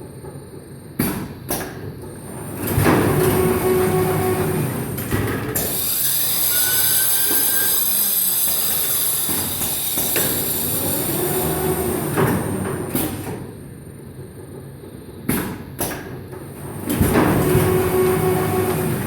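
Automatic film-cutting machine running through its work cycle: a pair of sharp clicks, then a loud mechanical run with a steady hum, then a long stretch of high hiss. The same clicks and run come again near the end, so the cycle repeats about every 14 seconds.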